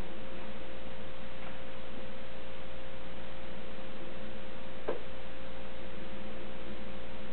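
Steady electrical hum and hiss from the recording, with one constant mid-pitched tone running through it. A single short click about five seconds in.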